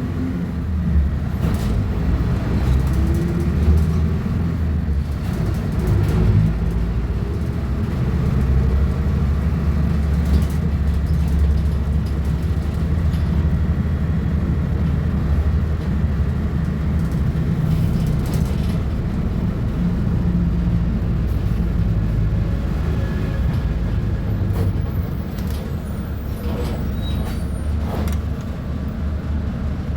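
Diesel engine of a Volksbus 15.190 OD bus running under way, a steady low drone whose pitch drifts up and down a little with throttle, with a few brief clicks and knocks.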